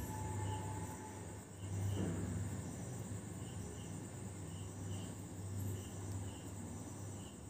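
Faint background sound: a steady low hum with short, high-pitched chirps repeating every second or so, some in pairs, like an insect chirping.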